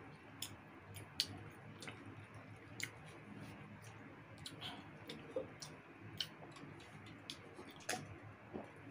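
Close-miked chewing of roast chicken, with soft wet mouth clicks and smacks scattered irregularly, about a dozen in all.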